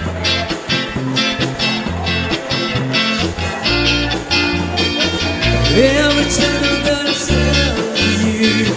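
Live band playing an instrumental cha-cha passage: electric bass, acoustic guitar, keyboard and drums with a steady dance beat.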